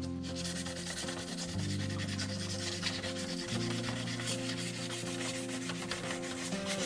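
Sandpaper rubbing over the painted body shell of a scale RC Jeep Cherokee in quick, scratchy strokes, wearing through the paint for a faded patina look. Background music with held low notes plays underneath.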